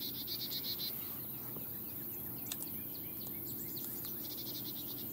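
Outdoor brush ambience: a high, rapid pulsing insect trill at the start and again about four seconds in, with short scattered bird chirps in between, over a steady low hum.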